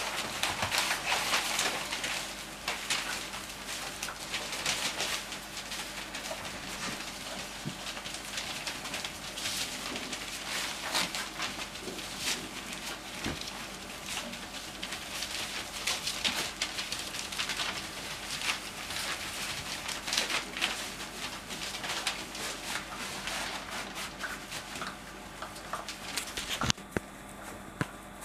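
Newspaper rustling and crinkling under a litter of cocker spaniel puppies scrambling and nosing through it, a constant patter of small crackles that thins out near the end, over a faint steady low hum.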